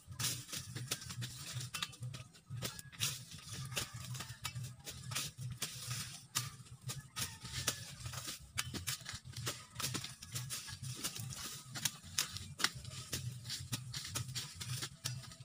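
Machete chopping sugarcane stalks, with dry cane leaves rustling and crackling: a steady string of irregular sharp cuts and cracks over a low hum.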